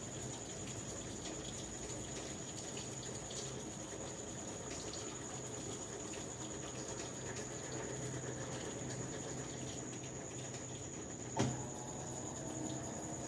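GE King Capacity 15.1 kg top-load washing machine with water running into its tub, a steady rushing. About eleven seconds in comes a single sharp click, the loudest moment, after which faint slowly rising tones start.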